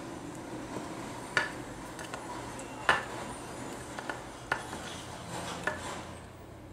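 Craft wire being gripped and bent with needle-nose pliers: about half a dozen sharp little metallic clicks and clinks, irregularly spaced, the loudest about one and a half and three seconds in, over a steady low hum.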